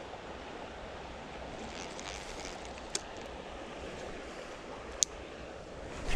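Steady rush of flowing creek water, with three sharp clicks about two seconds apart, the last the loudest.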